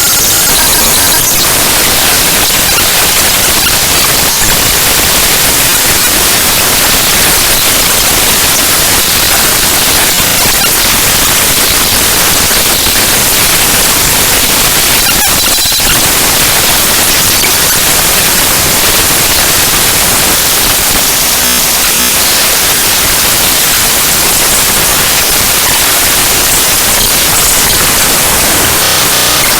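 Raw binary data of the chrome.exe program file played back as audio: loud, harsh static, dense and unbroken, with a brief shift in texture about halfway through.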